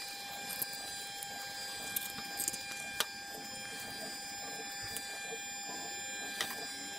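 Greasy cast-iron pulleys and a bushing handled by gloved hands: a few light metal clicks and knocks, the sharpest about three seconds in, over a steady faint hum of high tones.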